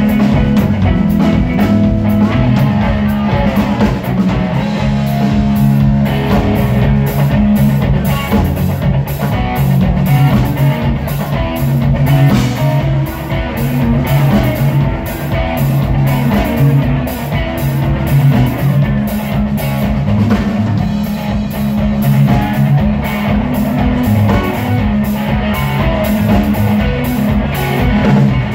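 Live band playing an instrumental section: electric guitars and a Yamaha drum kit, loud, with a steady drum beat.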